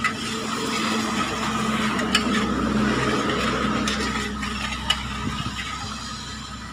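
Metal spoon stirring salt into hot water in a stainless steel bowl, with a few sharp clinks as it strikes the bowl, over a steady background hum.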